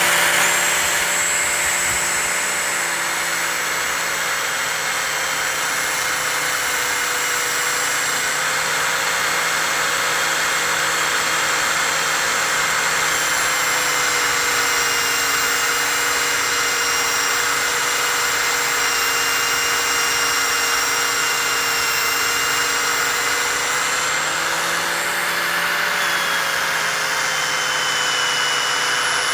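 Electric motor of a valve-rebuilding tool running without a break, with a steady hiss over it. Its pitch sags and rises slightly a few times as the load changes.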